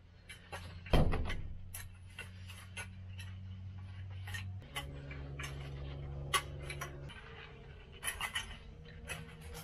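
Garden rake dragged through loose soil and manure, its tines scraping and clicking over and over, with a thump about a second in. A steady low hum runs underneath and shifts in pitch twice.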